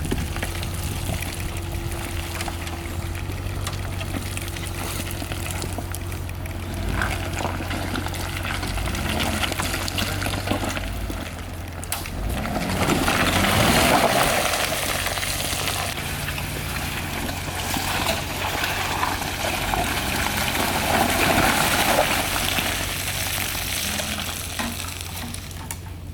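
4x4 engine running steadily at low revs as it crawls along a dirt trail, with gritty crunching and hiss from tyres on dirt and rock that swells about halfway through and again later.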